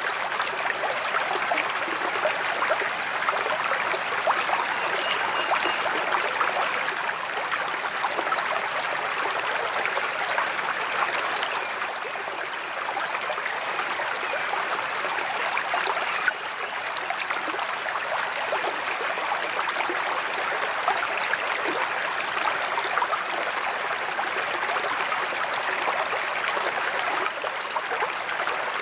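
Water pouring steadily from a sheet-waterfall spillway into a koi pond, with a continuous splashing rush.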